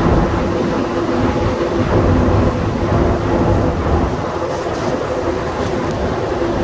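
Rubber-tyred Montreal Metro train running at speed through a tunnel, heard from inside the car: a loud, steady rumble with a few constant motor tones above it.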